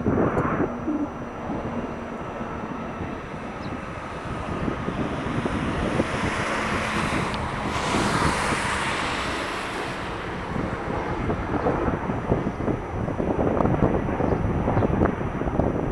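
Jet noise of an Airbus A330-300 and Patrouille Suisse F-5E Tiger jets flying in formation as they pass over. It swells to a peak about halfway through and then fades, with gusty wind buffeting the microphone throughout.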